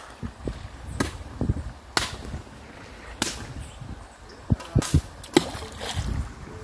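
A series of irregular sharp knocks and clacks, about a dozen spread over several seconds, bunched closer together in the second half.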